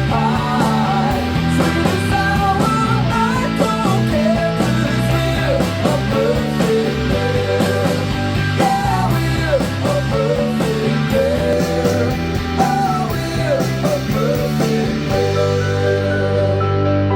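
Rock song with guitar and a singing voice, played back through bookshelf speakers and recorded for a sound test; the singing stops about fifteen seconds in, leaving a held guitar chord.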